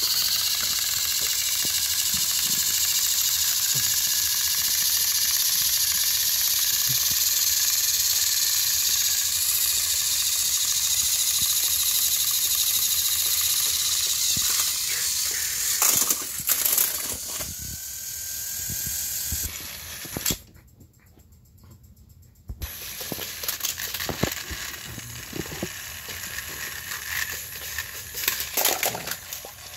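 Battery-powered Thomas & Friends toy engines whirring as they push head-on against each other on plastic track, a steady high motor-and-gear noise. Later come clicks and rattles of plastic toys being handled, with a short near-silent gap about two-thirds of the way through.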